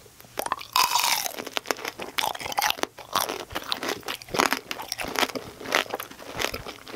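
Hard sugar-glaze shell of a candied cherry tomato tanghulu cracking as it is bitten and chewed: a loud crunch about a second in, then a steady run of crunches and chewing.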